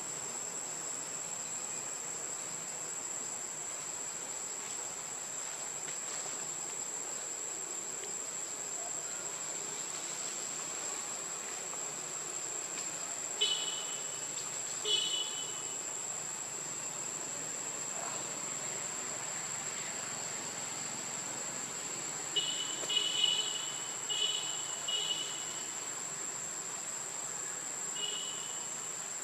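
Steady high-pitched insect drone, with a few short, high chirps breaking in twice near the middle and in a quick run of several in the last third.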